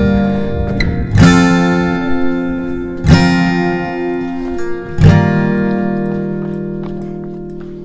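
Background music: an acoustic guitar strumming chords about every two seconds, each chord left ringing and fading away.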